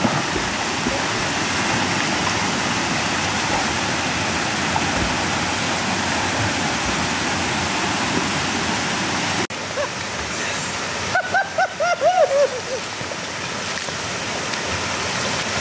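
River water pouring over a low stepped weir into a pool, a steady rushing sound. A brief burst of a man's voice cuts in a little past the middle.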